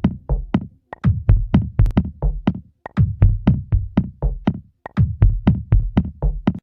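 Electronic drum-machine beat: evenly spaced hits, about four a second, each a low thud with a sharp click on top and no melody over them.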